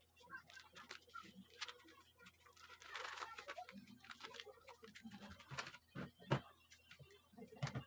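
Faint, irregular light clicks and taps, with a sharper knock about six seconds in.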